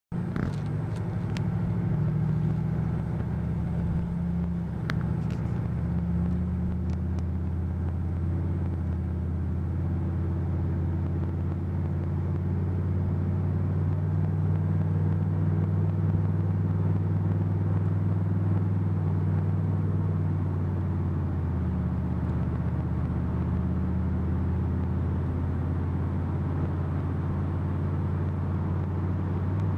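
2006 Chevrolet Monte Carlo SS's 5.3-litre V8 running steadily as a low drone, its pitch shifting a couple of times. The owner reports a transmission hiccup here when the torque converter locks up.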